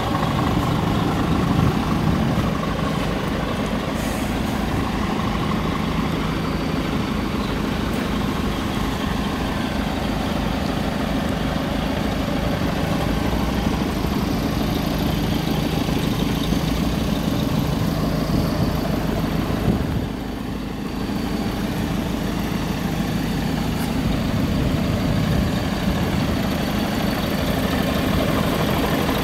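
Scania R440 tractor unit's 13-litre inline-six diesel idling steadily.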